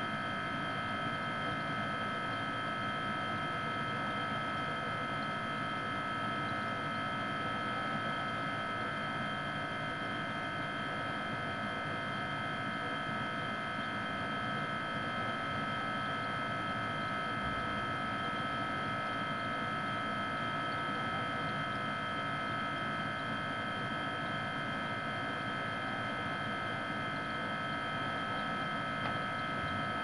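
Refrigerator running: a steady hum with a high, even whine over it.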